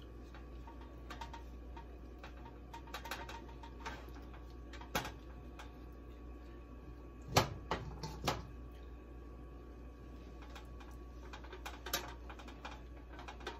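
Raw chicken leg quarters being set down and shifted on a wire cooling rack in a metal baking sheet: soft handling noises with scattered clicks of metal, the sharpest a few about seven to eight seconds in, over a low steady hum.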